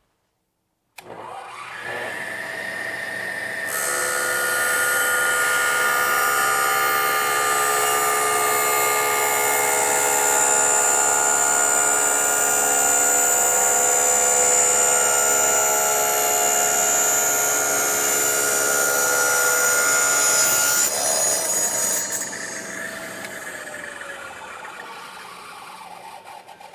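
Table saw switched on about a second in, its motor whining up to speed. A plywood blade mounted with its teeth facing backwards then cuts through a plastic sheet with a loud, steady whine and hiss. The cut ends abruptly about twenty seconds in, and the blade winds down with its pitch falling.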